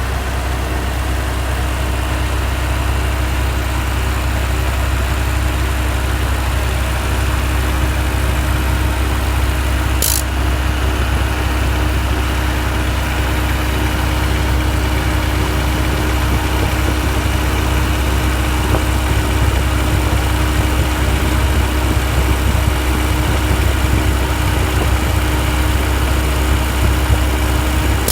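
1991 Honda Civic 1.5L four-cylinder engine idling steadily with its Matsushita AC compressor engaged, giving the rapid ticking that the owner traces to the compressor. A short sharp high sound about ten seconds in.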